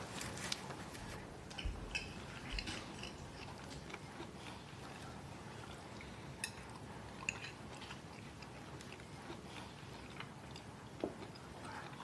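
Quiet dining sounds: scattered light clicks of cutlery on plates and soft chewing over a faint room hush.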